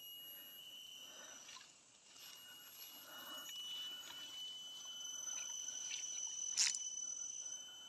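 Insects calling steadily at a high, thin pitch, with faint rustling and one sharp click near the end.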